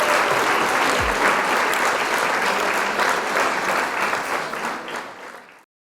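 Applause, fading away over the last seconds and cutting off to silence near the end, with a low falling swoop about a second in.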